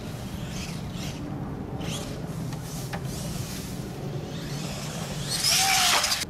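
Electric RC monster truck accelerating hard at a dirt jump about five seconds in: its motor whine rises to a loud peak and falls away as the truck leaves the lip and goes airborne.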